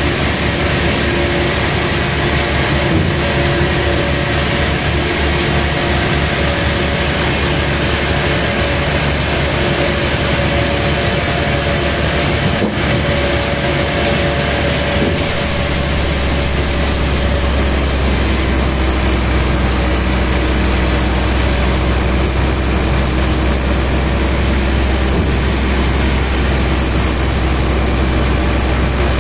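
Sawmill machinery running steadily, a loud mechanical drone with a deep low hum that grows heavier about halfway through.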